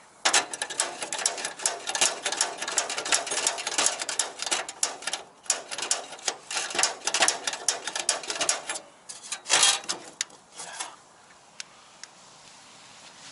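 Gas water heater's spark igniter clicking rapidly and steadily, several sparks a second, while trying to light the pilot. It stops after about nine seconds, with a few last clicks about a second later.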